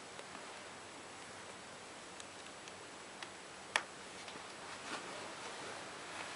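A few faint ticks and one sharper click near the middle over a steady hiss, with some soft rustling toward the end.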